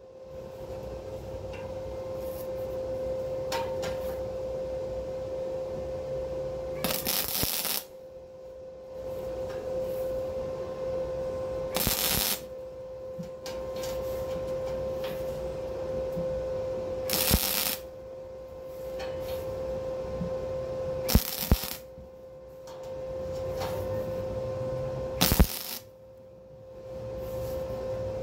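Flux-core wire welder arc crackling in runs of about three to six seconds, stopping and restarting several times, over a steady hum.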